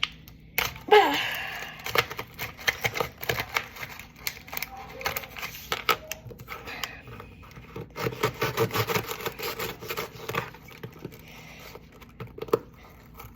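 Kitchen food prep: quick runs of taps, clicks and scrapes of a knife working food on a cutting board, with a short vocal squeal about a second in.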